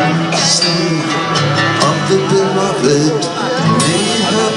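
Acoustic guitar strummed steadily with a violin playing a melody that slides between notes, in an instrumental passage of a folk song.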